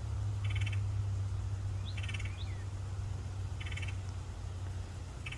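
Red-headed woodpecker giving a short call four times, about every second and a half, with two brief chirps from another bird about two seconds in, over a steady low hum.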